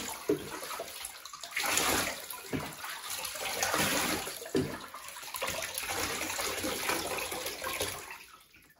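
Bathwater splashing and sloshing in a bathtub around a puppy being bathed, coming in several swells and fading out near the end.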